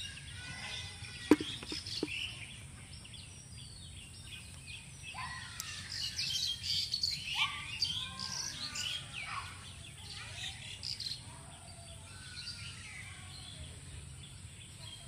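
Birds chirping and calling, many short chirps overlapping and busiest through the middle. A sharp click about a second in is the loudest sound, with a second, weaker one shortly after.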